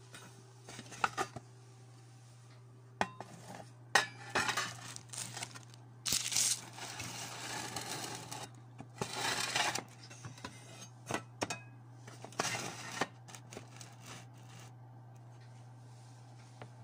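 Handling noise: irregular clicks, light clinks and short rustles as the phone and nearby objects are moved about, over a steady low hum.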